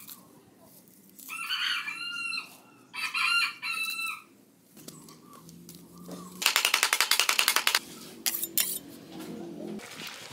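A rooster crowing twice, each crow a long held call, followed a few seconds later by a fast run of sharp clicks and a few knocks.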